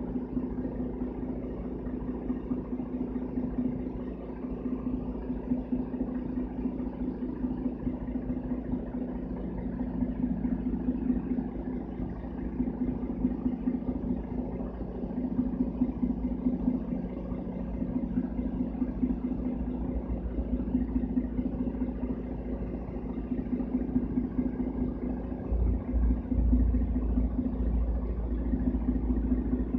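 Mercedes-Benz O530 Citaro city bus's OM457 hLA straight-six diesel idling steadily, heard from inside the bus cabin as an even low hum. The deep rumble grows stronger about 25 seconds in.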